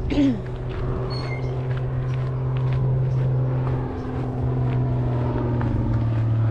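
A low-flying small plane's engine drone: a steady hum that grows gradually louder as the plane approaches.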